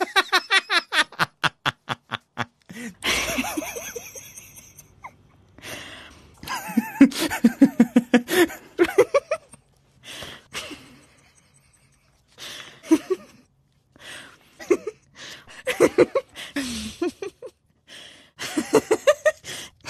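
People laughing in several bouts of quick, rhythmic bursts, with short pauses between the bouts.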